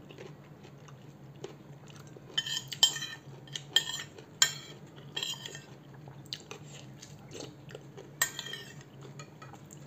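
A metal spoon clinking and scraping against a ceramic bowl as the broth is scooped up, with about half a dozen sharp, briefly ringing clinks.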